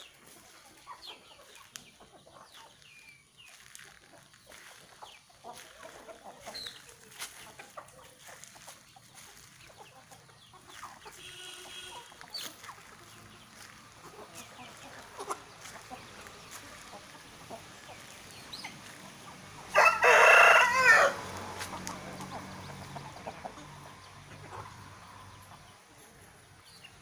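Aseel chickens clucking and calling, with one rooster crowing loudly for about a second about three-quarters of the way through.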